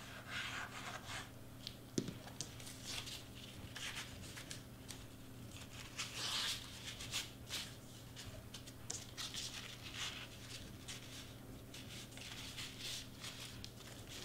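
Crepe paper rustling and crinkling in short, irregular bursts as hands press and smooth it onto foam board, with a light knock about two seconds in. A steady low hum runs underneath.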